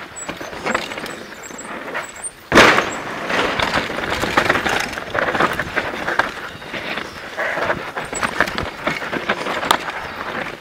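Downhill mountain bike rattling and clattering over a rough dirt forest trail, heard from a helmet-mounted camera, with many small knocks from the bike. A sharp jolt about two and a half seconds in is the loudest moment, and the rattling stays busier after it.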